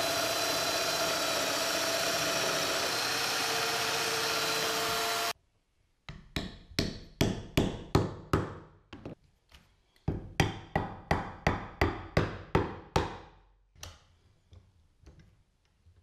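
Festool Domino joiner running steadily with a held motor whine, cut off abruptly about five seconds in. Then a mallet knocks on oak about twenty times in two quick runs of about three blows a second, driving the two halves of a curved support together on their floating tenons, followed by a few lighter taps.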